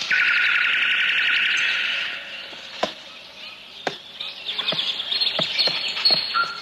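Birdsong: a loud, rapid trill that starts abruptly and lasts about two seconds, then a quieter stretch with a few sharp clicks, and then fast high chirping.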